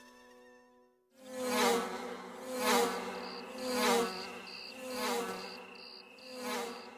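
Flying insects' wing buzz, swelling and fading about once a second with a wavering pitch, starting after music fades out in the first second. A steady high cricket chirp pulses on and off from about three seconds in.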